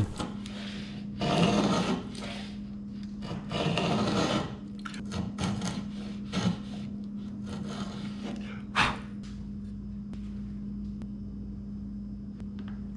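Router plane shaving the floor of a dado in a pine board down to final depth: a few scraping strokes, the first two about a second each, then shorter ones, followed by a single sharp knock about nine seconds in.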